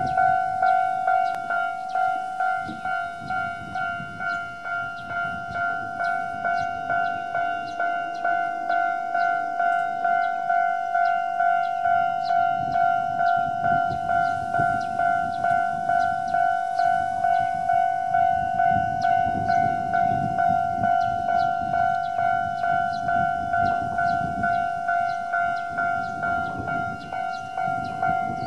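Japanese railway level crossing's electronic warning bell ringing in an even, repeating ding, signalling that a train is approaching.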